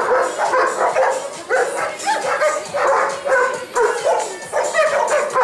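A dog barking and whining over and over, excited and eager to play.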